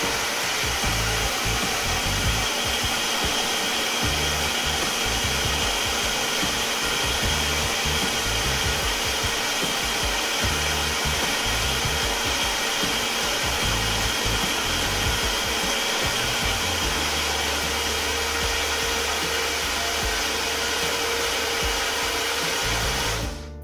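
Personal bullet-style blender motor running steadily as it blends a thick peanut and oat drink, then cutting off suddenly just before the end.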